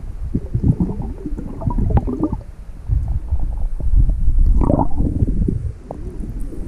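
Muffled underwater rumble and sloshing picked up by an action camera in its waterproof housing as the swimmer moves and handles a rock, with irregular bursts of water noise. About five and a half seconds in it turns quieter as the camera comes up out of the water.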